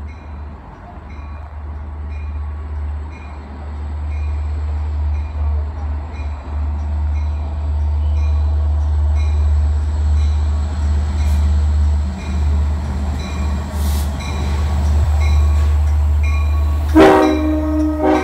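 LIRR DM30AC dual-mode locomotive approaching through the station, its low rumble growing louder as it nears. About a second before the end it gives a short, loud horn blast.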